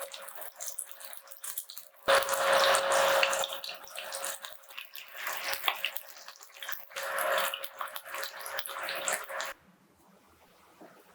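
Kitchen tap running into a sink, the stream splashing unevenly, with a faint steady hum under it. It gets louder about two seconds in, rises and falls, and shuts off abruptly near the end.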